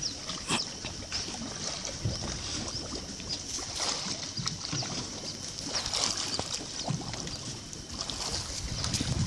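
Sea water splashing and lapping, with irregular splashes from a person swimming at the surface.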